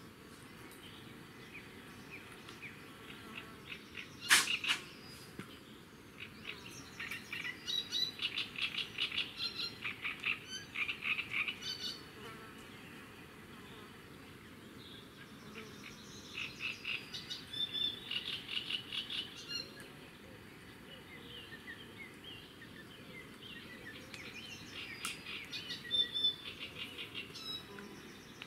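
Rapid chirping trills from small wild creatures, coming in several bursts of a few seconds each, with one sharp click about four seconds in.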